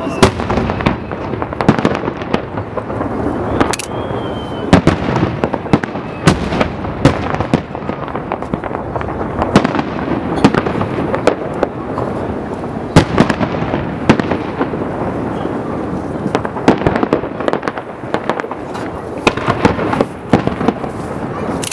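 Aerial firework shells bursting: loud sharp bangs at irregular intervals over a continuous noise of further bursts and crackle. A short whistling tone comes about four seconds in.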